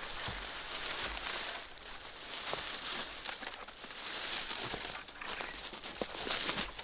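Dry leaves and twigs crackling and rustling underfoot in irregular steps across a forest floor.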